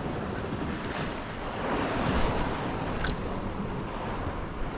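Sea waves washing gently on the shore under wind buffeting the microphone, a steady noise that swells a little about two seconds in.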